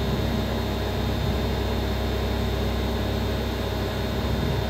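CNC milling machine's spindle running steadily with its cutter working an aluminium plate: an even mechanical hum with several held tones over a hiss.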